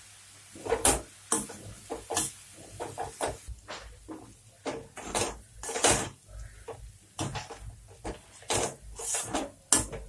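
Metal perforated skimmer spoon scraping and knocking against a metal kadhai as stir-fried noodles are tossed and mixed, in irregular clatters.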